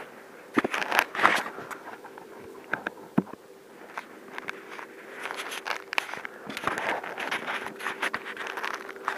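Icy snow crust crunching and scraping close to the microphone under someone moving. It comes in irregular crackly bursts: a loud cluster about a second in, a few strokes near three seconds, and a denser run through the second half. A faint steady hum sits underneath.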